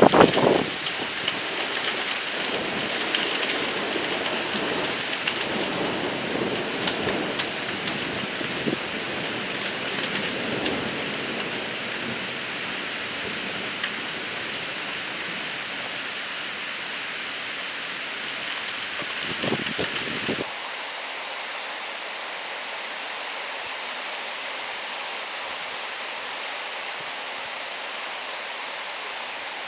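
Steady rain falling in a thunderstorm, with low rolling rumbles of thunder through the first two-thirds. The low rumbling cuts off suddenly about 20 seconds in, leaving only the hiss of the rain.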